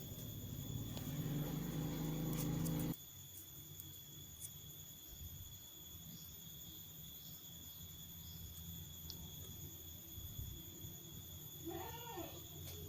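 Faint steady high-pitched whine over a low hum; the hum is louder for the first three seconds and then drops suddenly.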